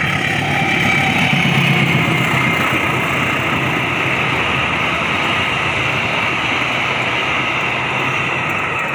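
Diesel-hauled passenger train running through a station without stopping: the diesel locomotive's engine passes, then a steady noise of the coaches' wheels on the rails as they roll by.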